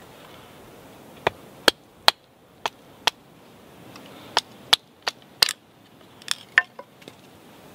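Wooden baton striking the spine of a bushcraft knife, driving the blade down through a stick to split it: about a dozen sharp wooden knocks at uneven intervals, starting about a second in.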